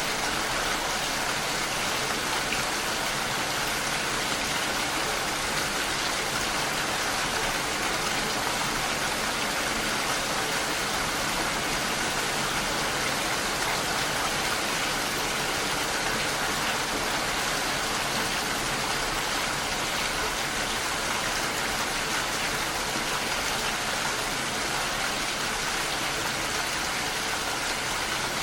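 Rain falling steadily, an even hiss of drops with no letup.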